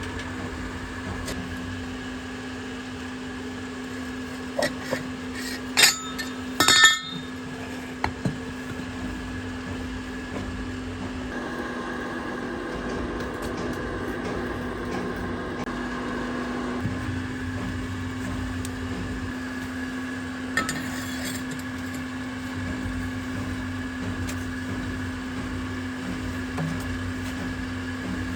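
A steady machine hum runs throughout, with a few sharp metal clinks and knocks, the loudest about six to seven seconds in and a single one about twenty seconds in.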